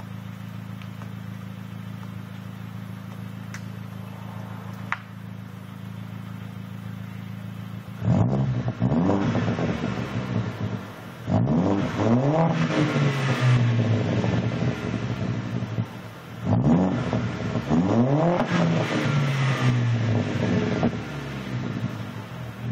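Audi A4 1.8T turbocharged four-cylinder running through a 3-inch turbo-back SSAC aftermarket exhaust with a high-flow cat, idling steadily, then revved three times, the first about eight seconds in, each rev rising in pitch and dropping back to idle.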